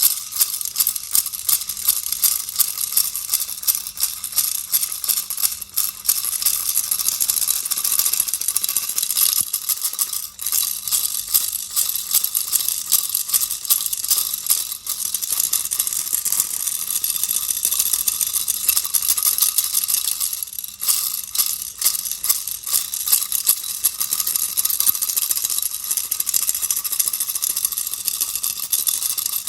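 Baby's toy rattle shaken without a break, a dense stream of quick, bright clicks of its beads, with brief pauses about 10 and 21 seconds in.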